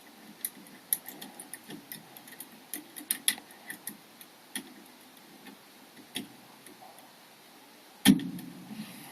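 Irregular small metallic clicks and ticks of lock picks working the levers of a Chubb 3G117 seven-lever mortice lock, with a louder knock about eight seconds in.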